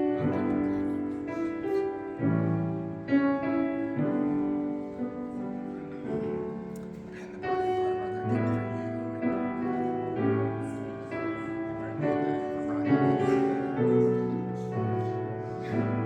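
Piano playing slow, sustained chords, a fresh chord struck about every second.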